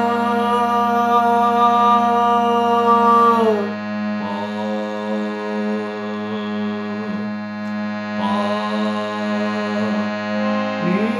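Nagi harmonium playing a steady drone under long held sung notes of a palta practice exercise. Each note slides up into pitch at its start and is held for two to three seconds, with short breaks between them; a new note begins near the end.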